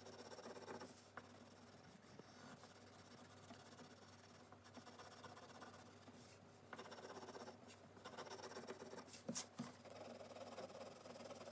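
Faint scratching of a coloured pencil shading on paper, with a brief knock about nine seconds in.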